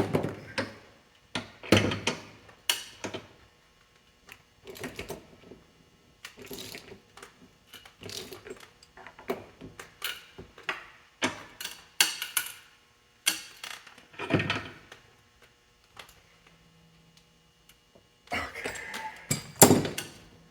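Irregular metallic knocks and clanks, roughly one a second through the middle, with a denser clatter near the end, from work to get the final gear onto the hydraulic pump's shaft.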